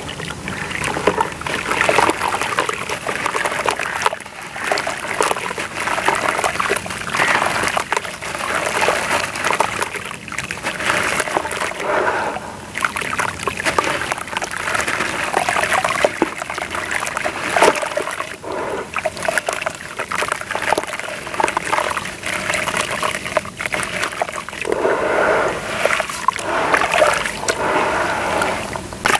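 Hands crumbling a wet, bucket-moulded block of sand-cement mix into a plastic tub of water and churning the muddy water: continual splashing and sloshing, with gritty crumbs dropping and trickling into the water.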